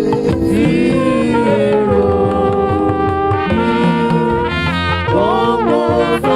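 Band music with a horn lead playing a melody of held notes that bend and slide, over a full low-end accompaniment.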